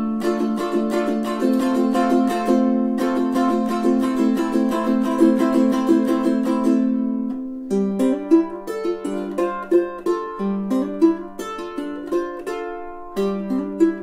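Kala KA-ATP8-CTG 8-string tenor ukulele with a solid cedar top, strummed fast for about seven seconds until a chord rings out. From about eight seconds in it is fingerpicked note by note.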